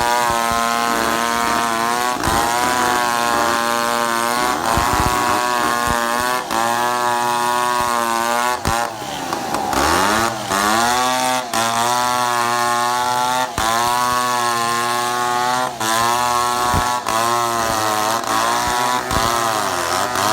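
Two-stroke chainsaw running at high revs, cutting acacia wood. Its pitch sags and climbs back about halfway through, and the sound breaks off for an instant every second or two.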